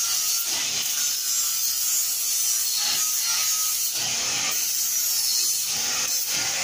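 Power grinder grinding welds on a sheet-metal duct: a steady abrasive hiss with a faint motor whine that drifts in pitch as the disc is loaded, broken by a few light knocks.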